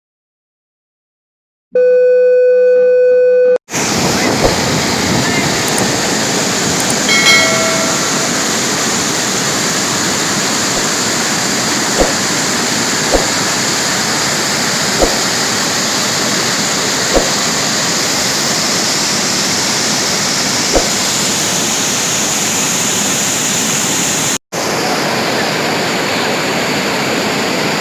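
Waterfall rushing in a loud, steady roar of falling water, with a few faint knocks and one short break near the end. It begins after a couple of seconds of a steady electronic tone.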